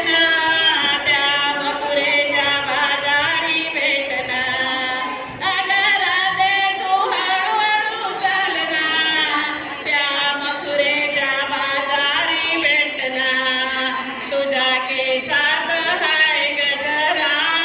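An elderly woman singing a Marathi gavlan, a devotional folk song, in a wavering voice. From about four seconds in she is accompanied by a steady beat of sharp strikes, about two a second.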